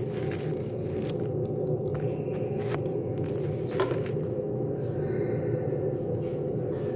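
A steady low hum of a running appliance or fan, with a couple of light clicks in the middle.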